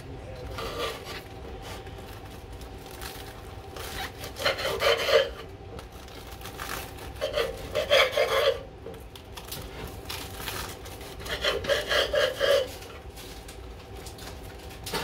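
Knife sawing through a loaf of bread: three bouts of quick back-and-forth strokes, each about a second long.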